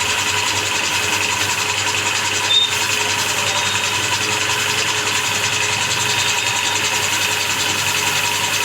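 Spray-polish sprayer running steadily while polish is sprayed onto a motorbike: an even machine hum with a fast, fine pulse under a steady hiss.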